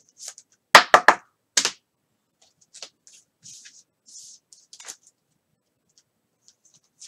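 Trading cards and their packaging being handled: four sharp clicks or snaps in the first couple of seconds, then soft rustling and faint taps.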